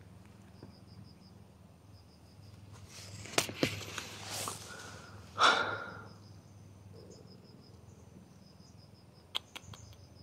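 Rustling and a few sharp clicks close to the microphone, the loudest a sharp rustle a little past the middle. Faint high chirps repeat in short runs in the background.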